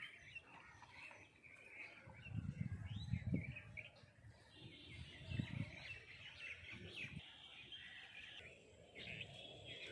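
Birds chirping and trilling in the background, with a few low thuds about two to three seconds in and again past the middle.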